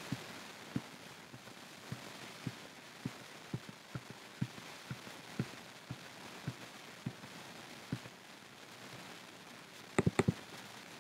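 Computer mouse in use at a desk: soft, low knocks about twice a second, then a quick run of three or four sharp mouse-button clicks near the end.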